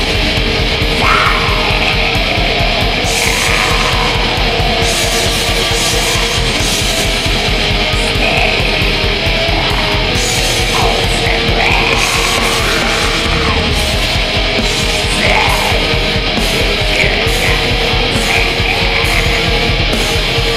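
Depressive suicidal black metal: a dense, unbroken wall of heavily distorted electric guitar over fast drumming.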